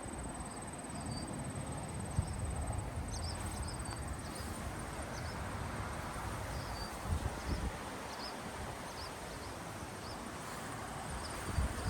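Wind buffeting the microphone with a low, uneven rumble. Short high chirps are scattered throughout, and a thin, steady, pulsing high trill breaks off about three seconds in and returns near the end.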